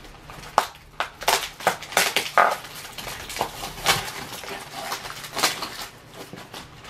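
Packaging being handled during unboxing: irregular crinkling and crackling with sharp clicks and knocks, which tail off about five and a half seconds in.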